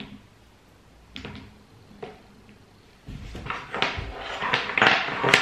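Light wooden knocks of Jenga blocks being set on the tower, once at the start and again about one and two seconds in, then from about three seconds a louder run of bumping and rustling as hands press and shift on the table, loudest near the end.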